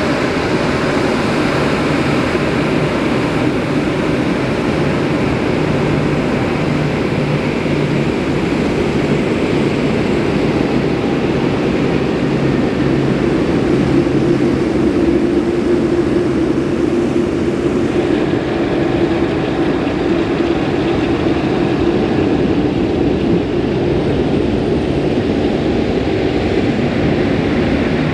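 Boeing 747-8F jet engines running at taxi power, a steady loud rumble with a low hum, swelling slightly about halfway through.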